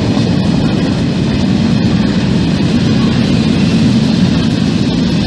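A train passing on the tracks, a steady loud rumble of wheels on rail.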